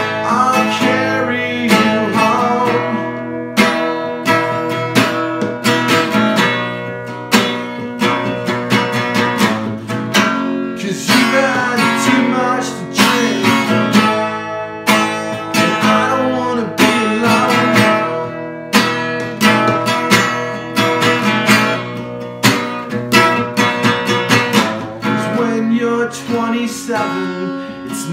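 Live solo acoustic song: an acoustic guitar strummed in a steady rhythm, with a man singing over it.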